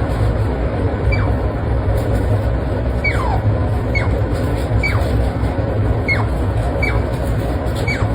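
Otter giving short high squeaks about once a second, each falling sharply in pitch, over a steady low rumble.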